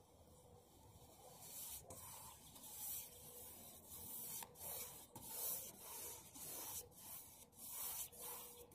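Paintbrush strokes swishing back and forth across ribbed aluminum camper siding, a run of short scratchy strokes about one or two a second, starting about a second and a half in.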